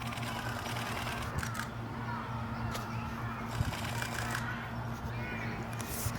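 Steady low electrical hum from the camera and gimbal rig, with faint high chirps over it and one sharp click a little past halfway.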